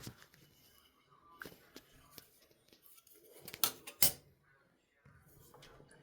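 Hard drive parts being handled at a sink: scattered clicks, two loud knocks about three and a half and four seconds in, and a faint steady rush of tap water starting near the end.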